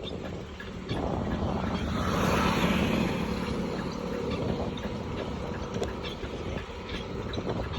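A road vehicle passes, its sound swelling to a peak about two to three seconds in and then fading, over a steady rumble of road and wind noise.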